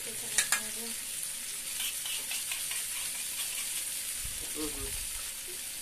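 Paneer tikka skewers frying in ghee on a hot tawa: a steady sizzling hiss with scattered sharp crackles, the loudest pair about half a second in.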